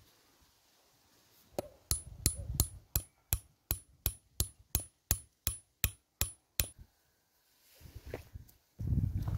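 About fifteen sharp, ringing hammer taps, roughly three a second, drive a wedge into the top of the axe eye to lock the new wooden handle in the head. The taps stop after about five seconds, and a low rumble follows near the end.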